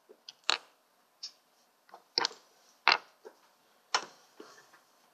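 Small plastic gel-polish pots and nail tools being handled on a tabletop: about six sharp clicks and light knocks at uneven intervals as they are picked up, set down and touched together.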